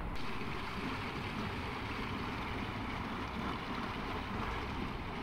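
Water rushing and churning into a single canal lock chamber as it fills, foaming up 'bubble bath style'. A steady rushing noise.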